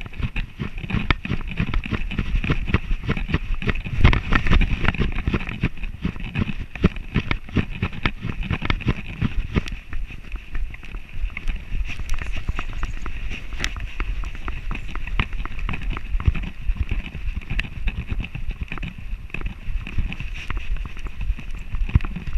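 Handling noise from an action camera strapped to a moving Border Collie's harness: a continual run of irregular knocks and rubbing over a low rumble, loudest about four seconds in.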